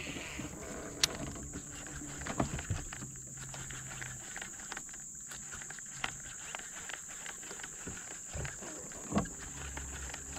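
Quiet outdoor background: a steady high-pitched drone, a faint low hum over the first few seconds, and a few scattered clicks and knocks.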